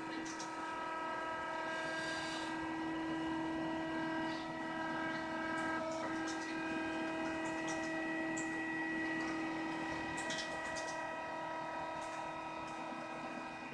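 Da Vinci 3D printer's stepper motors whining in several steady tones that step to new pitches every few seconds as the moves change, with faint scattered ticks.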